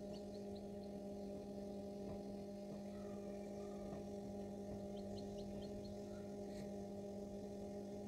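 Steady electrical hum of an egg incubator, with faint high peeps from a newly hatched black chick in two quick runs of four or five, one right at the start and one about five seconds in.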